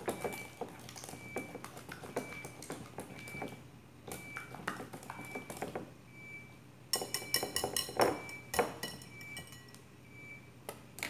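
Wire whisk beating eggs in a glass bowl: rapid clinking and scraping of the metal wires against the glass, with a brief lull and then a run of louder ringing clinks about two-thirds of the way through.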